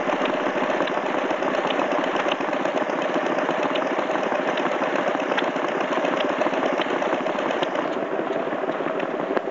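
Small vintage stationary engine running steadily, with a rapid, even knocking beat.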